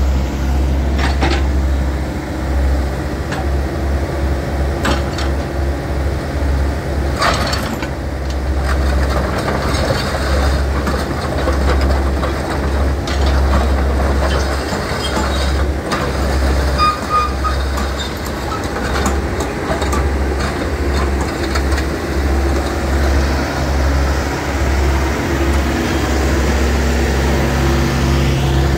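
Caterpillar 312 tracked excavator's diesel engine running steadily while the machine tracks and turns, with scattered clanks from its steel tracks.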